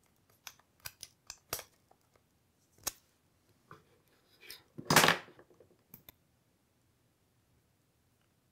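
Light clicks and taps from makeup being handled, an eyeshadow palette and applicator, with one louder knock-and-rustle about five seconds in, then it goes quiet.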